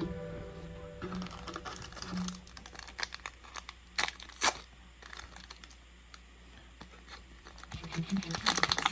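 Foil booster pack wrapper being crinkled and torn open by hand, with two sharp rips about four seconds in, a quieter stretch, then more crinkling near the end.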